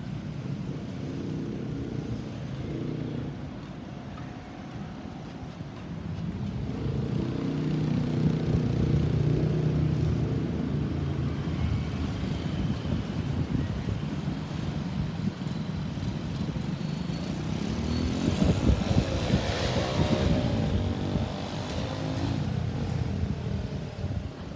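Road traffic: engines and tyres of passing vehicles, with one vehicle passing close about three-quarters of the way through.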